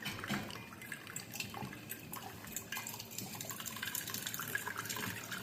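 Water running and dripping in a steady trickle with irregular small drips.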